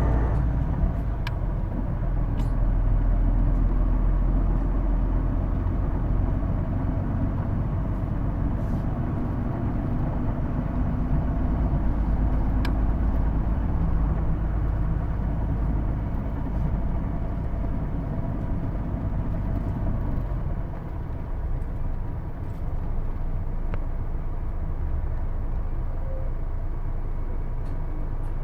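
Interior running sound of a Hino Blue Ribbon II (PJ-KV234L1) city bus under way: steady diesel engine and drivetrain rumble with faint steady tones from the transmission, which is noted for an unusual, automatic-like whine, and a few rattle clicks. The low rumble eases about twenty seconds in as the bus slows.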